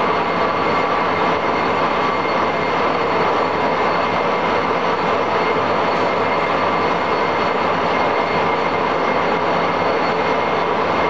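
Monarch 36NN heavy-duty engine lathe running steadily at its top spindle speed of 303 RPM, its 32-inch four-jaw chuck spinning. It gives an even mechanical hum with a faint high whine from the headstock drive, and it is very quiet, a sign of the machine's good condition.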